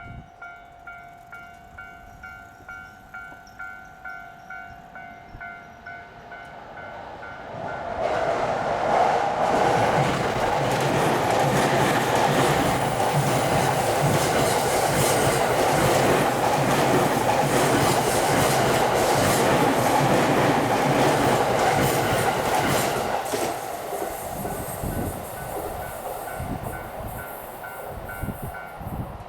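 A Japanese level-crossing alarm dings at about two strikes a second. Then an E231-series electric commuter train runs over the crossing from about 8 seconds in, and its running noise drowns the bell. The train noise fades after about 23 seconds, wheels clacking over the rail joints, and the crossing bell is heard again toward the end.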